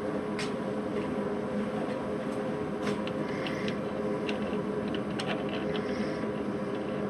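A steady electric machine hum, with a few light metallic clicks and taps from about three to five and a half seconds in.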